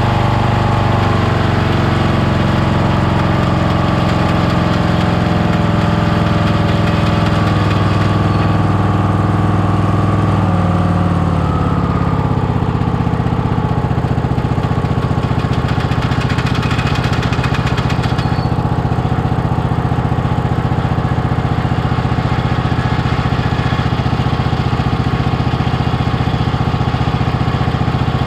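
Kohler engine of a Toro LX460 lawn tractor running steadily, with the drive belt and variable-speed pulleys turning. About eleven seconds in the engine note drops in pitch and then settles at the lower speed.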